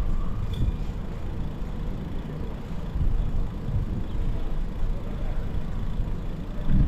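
Outdoor city-square ambience: a low, uneven rumble.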